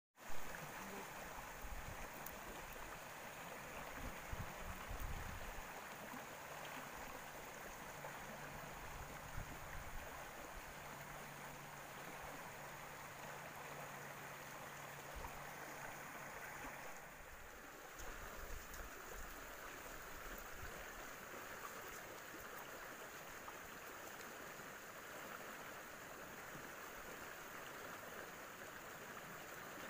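Steady rush of river water flowing over shallow riffles. A few low thumps come in the first few seconds.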